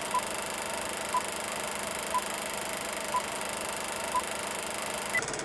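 Film-leader countdown sound effect: a steady projector whir with film hiss, and a short beep once a second as the numbers count down, then a higher-pitched beep near the end.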